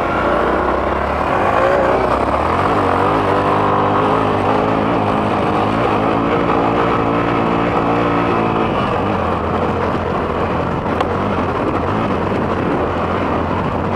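Motorcycle engine accelerating hard, its note climbing in pitch and dropping back several times as it goes through the gears in a full-throttle race, over heavy wind rush on the helmet-camera microphone. After about nine seconds the engine note sinks into steady wind noise at speed, with a single knock near eleven seconds.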